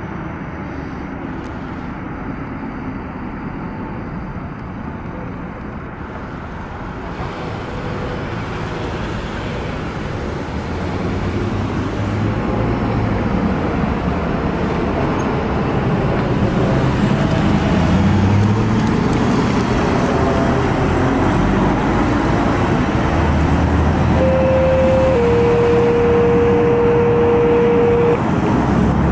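Emergency vehicles driving past on a street, mainly a van's engine and tyre noise, growing louder over the first half and staying loud. Near the end a steady tone sounds for about four seconds, stepping slightly down in pitch partway through.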